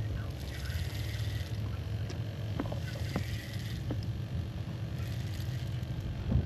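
Wind rumbling steadily on a phone microphone, with a few faint short clicks about the middle.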